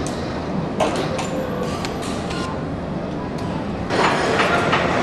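Vehicle assembly plant floor: a steady machinery hum and whir with scattered metallic clanks and clicks, growing louder and busier about four seconds in.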